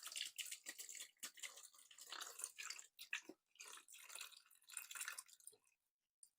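Water balloons being popped, with wet splashing, dripping and quick crackly clicks that stop a little before the end.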